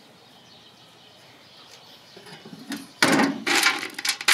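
A hand digging into dry wood pellets in a Pit Boss 820 pellet grill's hopper, a loud rustling clatter of pellets that starts about three seconds in.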